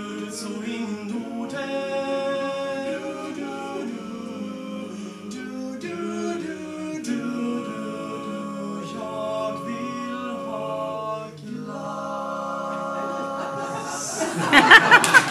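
Male vocal quartet singing a cappella in close harmony, moving through sustained chords and ending on a long held chord. Audience applause breaks out near the end.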